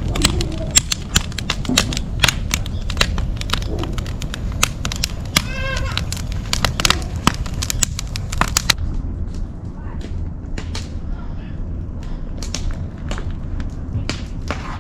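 Wood campfire of split firewood crackling and popping with sharp, irregular snaps. The pops become fewer and fainter after about nine seconds.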